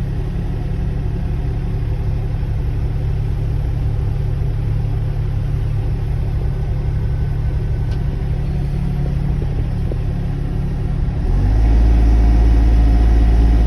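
Sany SY35 mini excavator's diesel engine running steadily at a low idle. About eleven seconds in it comes up sharply to a louder, heavier working speed as the auto idle lets go.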